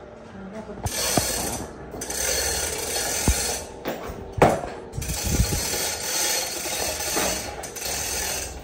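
Manual chain hoist being hauled to lift a car engine: the pawl ratchets and the chain rattles in runs of a second or two, with short pauses between pulls.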